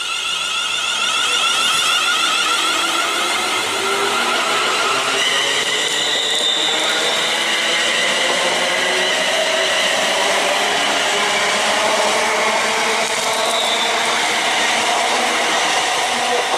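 Class 380 electric multiple unit accelerating away from the platform and passing close by: a steady whine of several tones, shifting about five seconds in, with lower tones slowly rising in pitch, over the running noise of the train.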